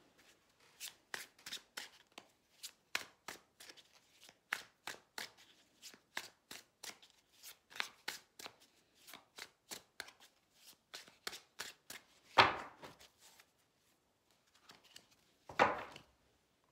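A deck of tarot cards being shuffled by hand: an even patter of soft card slaps, about three a second, then two louder slaps, a little over twelve seconds in and near the end.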